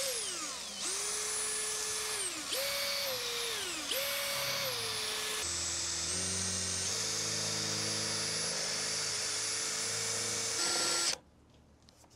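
Cordless drill with a 12 mm Forstner bit boring through the plastic casing of a Starlink dish base. The motor whine comes in three short bursts, its pitch sagging as the bit bites, then runs steadily until it stops abruptly near the end as the bit breaks through.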